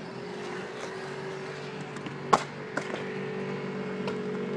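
Stunt scooter wheels rolling on smooth concrete in a skatepark bowl, a steady hum, with a sharp click a little over two seconds in and a couple of fainter clicks after it.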